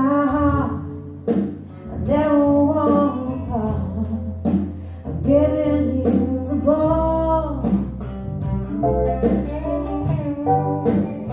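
A song with a singing voice and accompaniment over a deep bass line, played back through ATC bookshelf speakers driven by an AMR preamplifier and mono power amplifiers.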